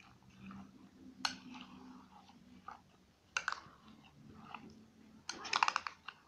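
Metal spoon folding chopped fruit through a thick cream-and-mayonnaise dressing in a glass bowl. A few sharp clicks of the spoon against the glass, then a louder, rapid rattling scrape about five seconds in.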